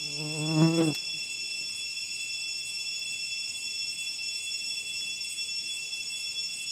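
Steady high-pitched insect drone, as from a cicada chorus, with several unchanging shrill tones. About half a second in, a man makes one short grunt-like vocal sound.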